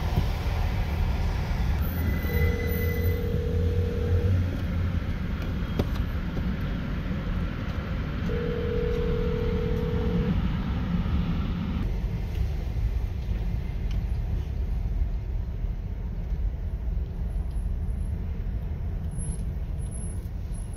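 Steady road and engine rumble heard from inside a car crawling in heavy traffic. Two long steady tones, each about two seconds, sound a few seconds apart early on. Partway through, the hiss above the rumble drops away.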